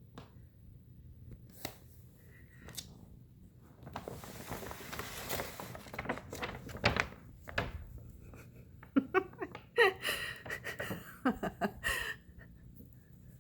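A bag rustling and crinkling, with scattered light knocks and clicks and a longer burst of rustling about four to six seconds in.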